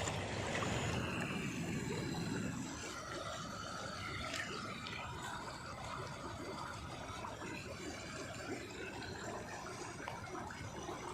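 Heavy monsoon rain falling steadily, with water running and trickling. It is a little louder for the first few seconds.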